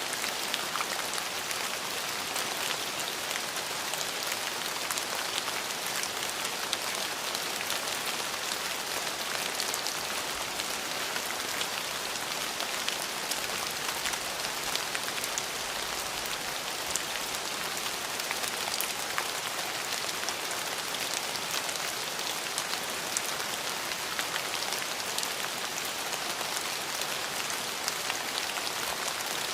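Steady rain falling, a constant hiss of drops with many fine individual patters on a surface.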